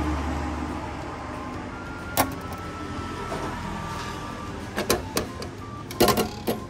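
Noodle vending machine: its low motor hum dies away in the first second. Then come sharp clicks and knocks as the hatch's clear flap is held open and a plastic bowl of udon is drawn out, the loudest near the end.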